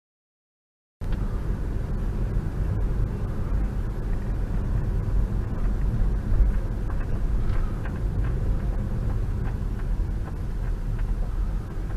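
Silence for about a second, then the steady low rumble of a car driving at about 25 km/h, its road and engine noise picked up inside the cabin by a dash cam, with a few faint ticks.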